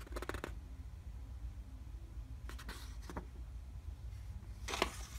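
Pages of a paper instruction booklet being turned by hand: a few brief paper rustles, the sharpest one near the end, over a low steady hum.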